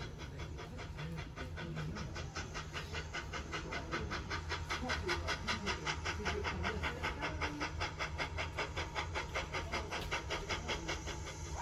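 Steam locomotive working in the distance, its exhaust beating in a rapid, even rhythm of about five chuffs a second that fades out near the end.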